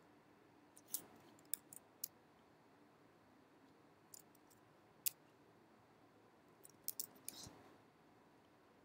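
Scattered sharp clicks of a computer mouse and keyboard, a few in quick runs, over a faint steady hum.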